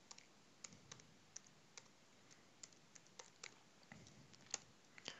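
Faint, irregularly spaced clicks of computer keyboard keys being typed.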